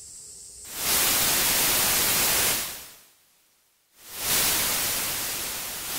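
Television static hiss: a loud burst of even white noise comes in under a second in and fades away near the three-second mark. About a second later it cuts back in suddenly and slowly tapers.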